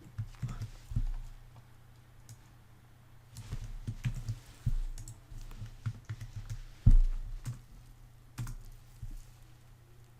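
Typing on a computer keyboard: irregular clusters of keystrokes, many with a dull thump, and one louder knock about seven seconds in.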